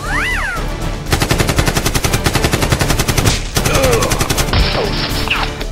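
Rapid automatic gunfire sound effect, many shots a second, in two long bursts with a short break just past the middle.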